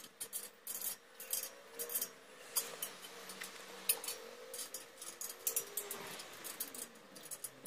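Hand tools clinking against a welded steel frame while a motor mount is worked on: irregular sharp metallic clicks and taps.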